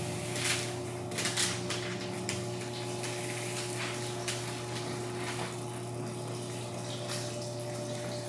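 20 mil clear protective film being peeled off the paint protection film on a car's rear quarter panel, a hissing, crackling rip that comes in louder spurts about half a second and a second and a half in, and again near the end.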